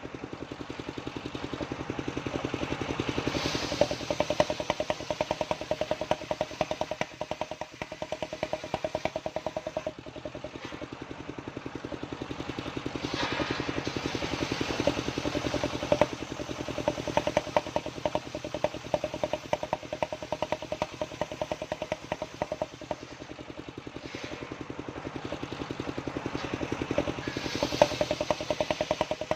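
Small engine of a homemade sawmill running steadily, its note swelling and easing about every ten to twelve seconds.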